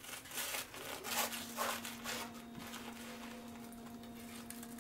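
Knife sawing through the crisp crust of a grilled bread on a wooden board: a few scratchy, crunchy strokes in the first couple of seconds, then quieter cutting.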